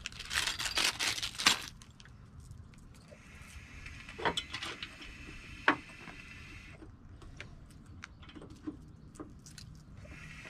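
A clear plastic bag crinkling as small parts are taken out of it. After about a second and a half it gives way to scattered light clicks and taps of small hardware being handled, with two sharper clicks about four and six seconds in.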